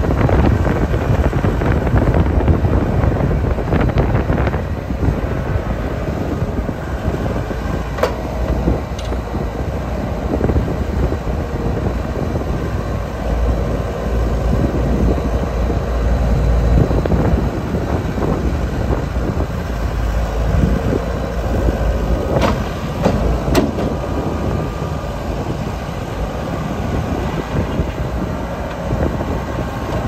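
Bobcat 863 skid steer's diesel engine running while the machine is driven and the bucket is worked, growing louder in stretches. A few sharp metallic clanks are heard about a third of the way in and again past the two-thirds mark.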